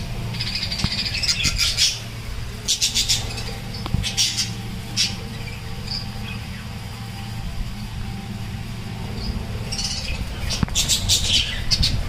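Budgerigars chirping in clusters of short, high-pitched calls, busiest near the start and again near the end.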